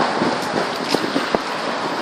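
Strong gale-force wind blowing hard across the microphone, a steady loud rush, with a few short knocks about a second in.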